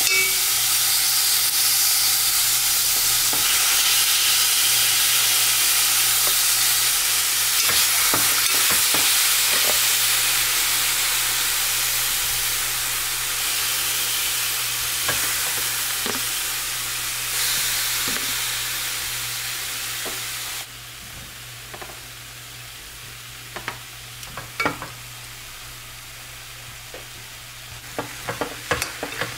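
Chicken pieces sizzling in a hot pot as they are laid in, a steady hiss. About two-thirds of the way through it cuts down suddenly to a quieter hiss with light clicks of chopsticks against the pot.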